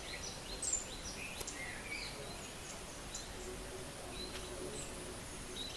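Several birds chirping and calling: short, scattered whistled notes and chirps overlapping one another, over a thin steady high whine.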